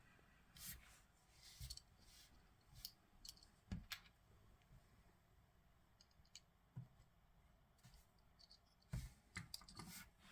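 Faint, irregular clicks and taps of small plastic parts as two blasters are pushed onto a Transformers Studio Series Core Class Ratchet action figure. The sharpest click comes about a third of the way in, and there is a quick run of clicks near the end.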